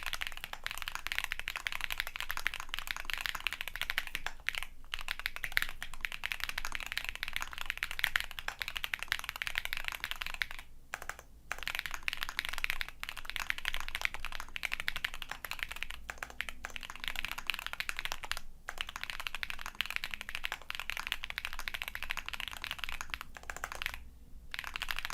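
Fast, continuous typing on a custom mechanical keyboard, a gasket-mounted, foam-filled Mont Cervin STS with an aluminium plate, Bolsa ZAKU switches and PBT keycaps. The keystrokes come as a dense stream of clacks, broken by short pauses about four, eleven, eighteen and twenty-four seconds in.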